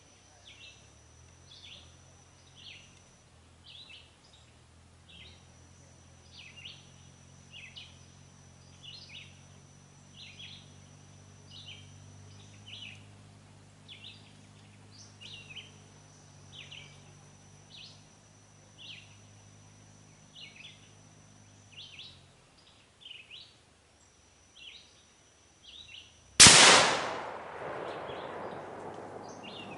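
Chirping at about one a second over a steady high insect-like drone, then near the end a single rifle shot cracks out, sudden and loud, its echo dying away over a couple of seconds.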